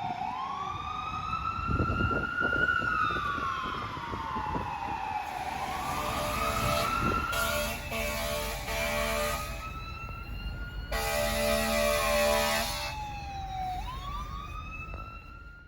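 Fire truck siren wailing, slowly rising and falling in pitch. A few short air-horn blasts come about six seconds in and a longer blast about eleven seconds in, over the low rumble of the truck's engine.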